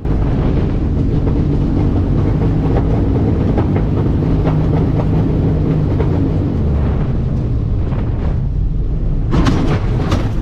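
Loud, steady rumble and clatter inside a small plane's cabin during a catastrophic engine failure.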